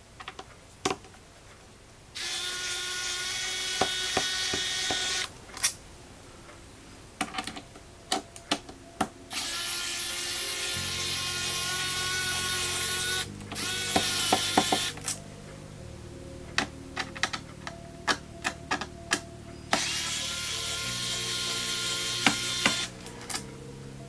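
Small electric screwdriver whirring in four runs of a few seconds each, with sharp clicks of screws and tools between runs, as the laptop's case screws are taken out. Low background music comes in about halfway through.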